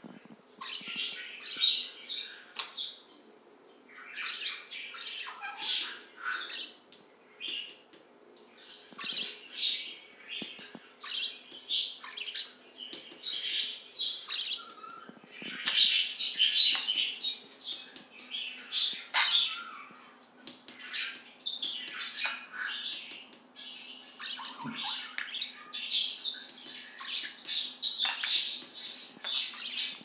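Budgerigars chattering and warbling: quick runs of chirps, squawks and sharp clicks, coming in bursts with short lulls between.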